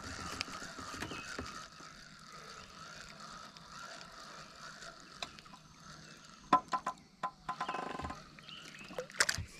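Spinning rod and reel being worked while a lure is retrieved and a bluegill comes onto the line: a run of sharp clicks and knocks in the second half, over a faint steady high tone in the background.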